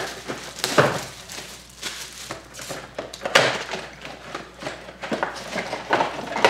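A cardboard hobby box of football card packs being handled and opened, with the packs pulled out: irregular rustling, scraping and tearing of cardboard and wrappers. The two loudest noises come about a second in and again about three seconds in.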